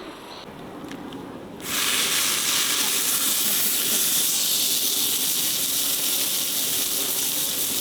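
Meat sizzling on a grill over charcoal: a loud, steady sizzle that starts suddenly about two seconds in, as the meat goes onto the hot grill.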